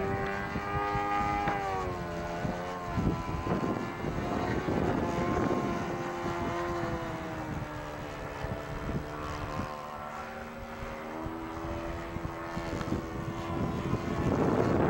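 Saito FA-80 four-stroke glow engine turning a 13x6 propeller on an RC model airplane in flight. Its steady note drops in pitch about two seconds in and rises again around eleven seconds in.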